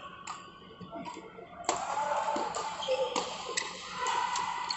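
Badminton rally: rackets striking a shuttlecock, several sharp taps in a row, about a second apart.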